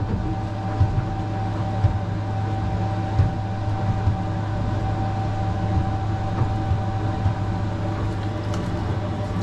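Honda F200 outboard running steadily at cruising speed, heard as a low drone inside the boat's cabin with hull and water noise. A thin, steady higher whine runs along with it and stops about seven and a half seconds in.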